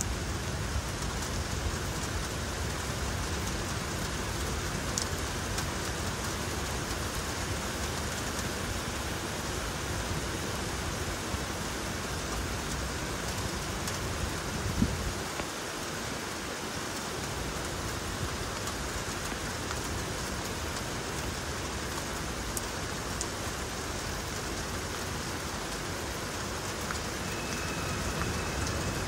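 Steady rain falling on a city street and buildings during a thunderstorm. A single brief sharp knock comes about halfway through and is the loudest moment.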